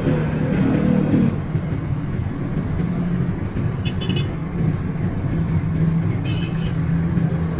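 An engine running at a steady speed, with two brief high jingles of metal partway through.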